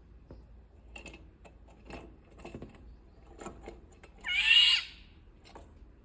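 Indian golden oriole giving one loud call that rises in pitch and lasts under a second, about four seconds in. A few faint ticks come before it.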